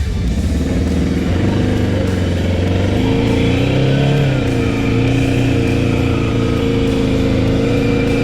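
Off-road vehicle engine running under way, its revs rising and falling once about halfway through.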